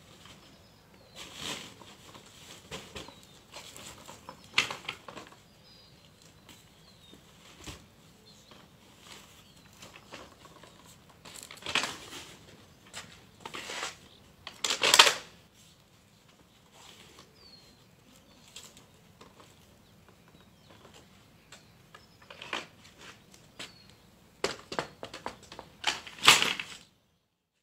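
Graco Modes 3 Lite DLX stroller being handled: scattered plastic and metal clicks and knocks as the seat is unlatched and lifted off the frame, with fabric rustling. The loudest knocks come about halfway through and near the end.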